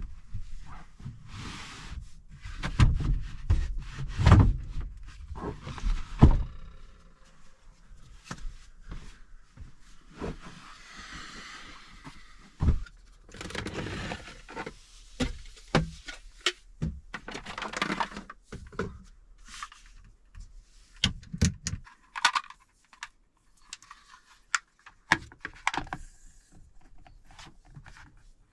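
Knocks, thumps, scrapes and rattles of things being handled and moved about inside a camper van, with heavier thumps in the first few seconds and lighter clatter after.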